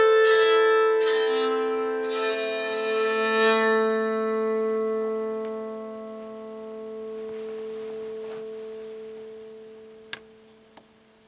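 Bowed psaltery playing the final notes of a tune, then its strings ringing on and slowly dying away. Two faint clicks sound near the end.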